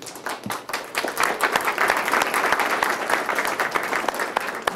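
Audience applauding. The clapping swells about a second in and thins out near the end.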